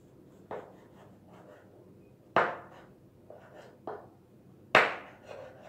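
Kitchen knife slicing through a log of rolled bread dough and knocking on a wooden board: four sharp knocks, the second and fourth loudest.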